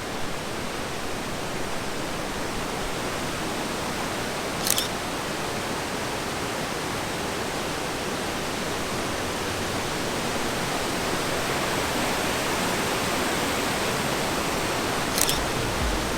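Steady rush of a large waterfall, with two sharp camera shutter clicks, one about five seconds in and one near the end.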